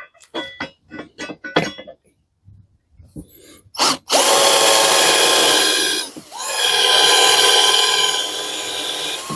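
A quick run of short clicks, then a knock, then a Parkside 12 V cordless drill motor starting and running at speed as it drills into metal. It stops briefly about two seconds after starting, then runs on steadily.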